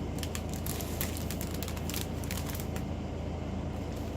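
Small plastic bags of diamond painting drills crinkling and clicking as they are handled, over a steady low hum.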